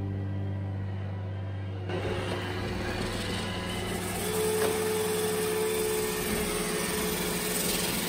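Robot vacuum cleaner running, a steady mechanical whir of its motor and brushes that takes over when background music stops about two seconds in, with a steady hum in the middle.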